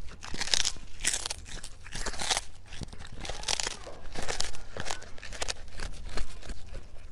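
A cat chewing a small whole fish: a run of wet crunching bites, about two a second, as its teeth break through the fish.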